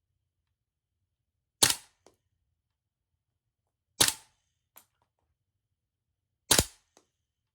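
Tokyo Marui Type 89 gas airsoft rifle firing single shots, three sharp reports about two and a half seconds apart, each followed about half a second later by a faint click.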